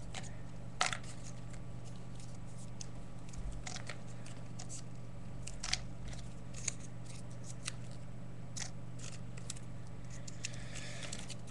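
Small paper slips being folded by hand: scattered soft crinkles and creasing clicks, the sharpest about a second in, over a steady low hum.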